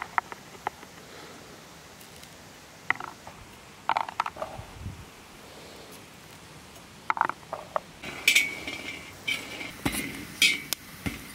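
A knife cutting into chestnut shells, a few sharp cracks spread over several seconds. From about eight seconds in, roasted chestnuts clatter onto a metal sheet, which rings with the hits.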